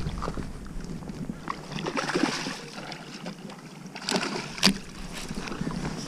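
A hooked bass splashing and thrashing at the water's surface close to the bank, with two sharp knocks a little after four seconds in.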